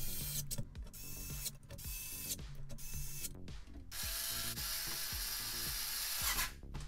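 Cordless electric screwdriver turning screws in a plastic stereo chassis: several short spurts of the motor, then a longer run of about two seconds that cuts off suddenly near the end.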